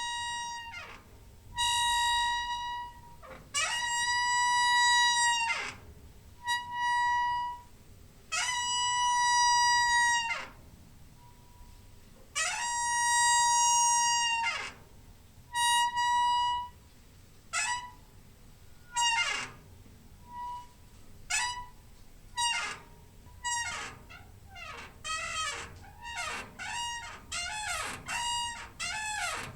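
Door hinge squeaking again and again: long squeaks held at one high pitch, each sliding down as it stops, then shorter, quicker squeaks in the last third.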